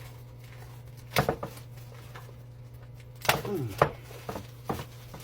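Plastic parts of a cat water fountain being handled: a few sharp knocks and clacks, one about a second in and a cluster past the middle, over a steady low hum.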